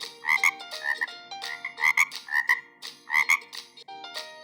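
A frog croaking: about nine short, rasping croaks in quick uneven groups.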